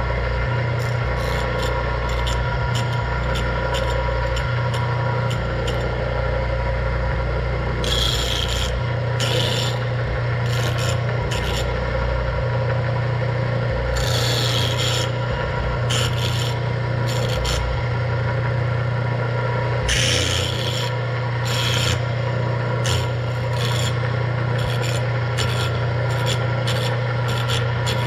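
Bench grinder motor running with a steady hum while a homemade dressing tool is worked back and forth across the grinding wheel, dressing its face. The scrape against the wheel comes and goes in hissing rasps and ticks, with the strongest rasps about a third, halfway and two-thirds of the way through.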